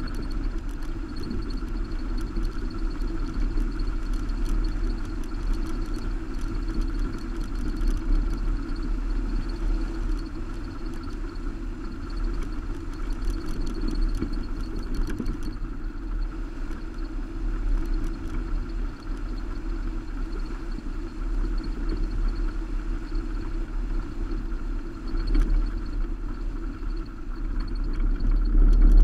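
Subaru Baja driving steadily along a gravel road, heard from a camera on its roof rack: steady engine, tyre and road noise over a low rumble, with scattered light ticks.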